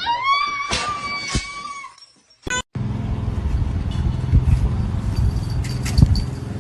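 A cat's long drawn-out meow that rises at the start and then holds steady for about two seconds. After a short cut comes a low rumbling noise with scattered knocks.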